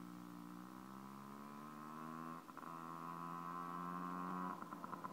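Small motorcycle engine running as the bike approaches, its pitch climbing slightly and growing louder, with a brief dip about halfway through. Near the end its separate rapid firing pulses become distinct as it comes closer.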